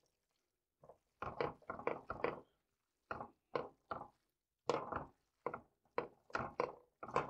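Kitchen tongs tossing spaghetti in a metal frying pan: an irregular run of short knocks and clicks, about two or three a second, starting about a second in.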